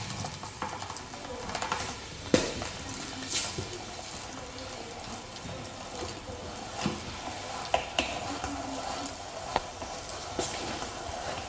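Hand-cranked plastic meat grinder being turned while it minces raw meat, with a low rasping creak and irregular sharp clicks from the crank and auger.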